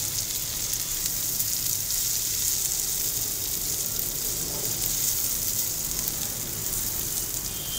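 Sliced onions sizzling in hot oil in an iron karahi: a steady high hiss as they fry toward light brown.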